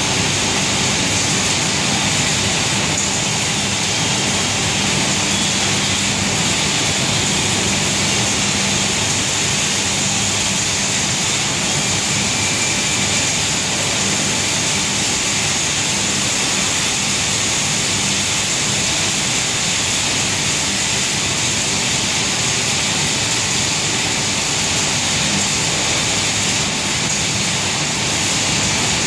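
Dust extraction plant running: a steady, loud machinery drone of its fans, with a low hum and a high hiss.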